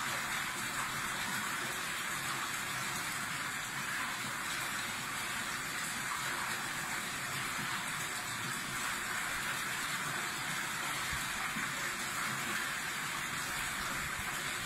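Steady rush of flowing water in a koi pond, running at an even level.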